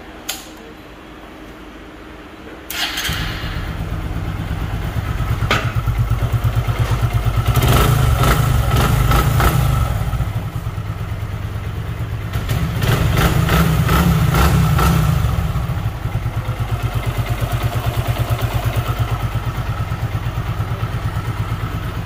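Hero Super Splendor's single-cylinder four-stroke engine starting about three seconds in, then idling and being revved twice by hand before settling back to idle. After an engine rebuild it runs smooth, without the hammering knock it had before.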